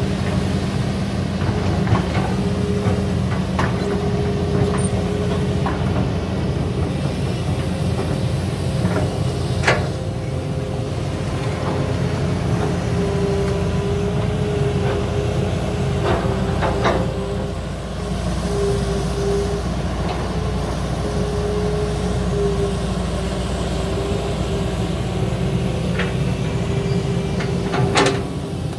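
Diesel engines of Kobelco and Hitachi hydraulic crawler excavators running steadily under load as they dig wet mud. An on-and-off hydraulic whine rides over the engine, and a few sharp metallic clanks come from the buckets and linkages.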